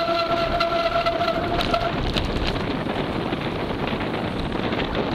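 A mountain bike on a rough trail with wind rushing over the microphone and many small rattling clicks. For the first two seconds a steady brake squeal sounds over it, then stops.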